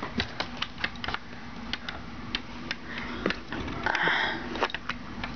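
Irregular light clicks and taps, with a short rustle about four seconds in over a faint steady hum.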